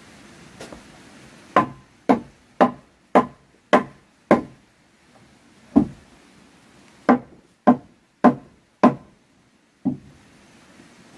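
Hammer blows on a wedge driven into the gap between wooden floor planks, each a sharp, ringing knock. There is a run of six blows about two a second, a single blow, four more, and a last one near the end.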